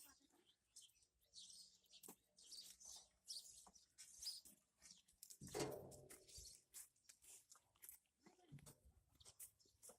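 Faint crunching and clicking of Sirohi goats feeding, with a single falling goat bleat about five and a half seconds in.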